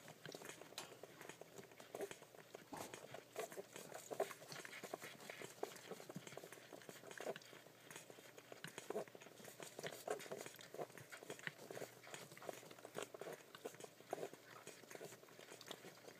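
West Highland White Terrier puppies nursing from their mother: faint, quick, irregular suckling clicks and smacks.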